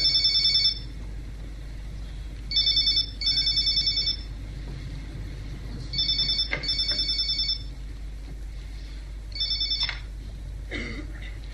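Landline telephone ringing with a high, trilling ring in repeated double bursts about every three seconds. The last ring comes just under ten seconds in, and then the ringing stops.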